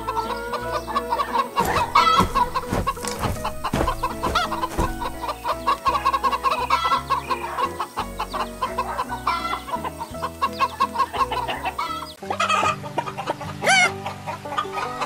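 A flock of chickens clucking busily, many short calls in quick succession, over light background music. Near the end, a few louder rising calls stand out.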